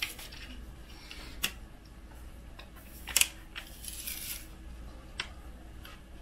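Hand handling of a silicone heater pad being peeled back and pressed down onto an aluminium bed plate: a few sharp light clicks, the loudest a double click about three seconds in, with a brief rustle of the pad and backing around four seconds.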